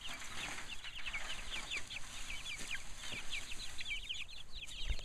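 Flock of chickens chirping continuously: many short, high, falling notes overlapping one another.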